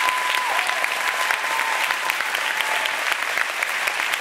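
Audience applauding steadily, with a faint held tone over it for the first few seconds.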